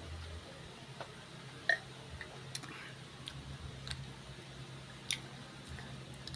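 Someone chewing crunchy snack crackers close to the microphone: a scatter of sharp crunching clicks, with the strongest about a second and a half in and again near the five-second mark, over a steady low hum.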